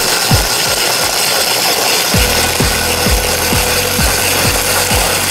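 Electric shaved-ice machine grinding a block of ice and spraying shavings into a paper cup: a steady coarse rasping, with a beat of background music underneath.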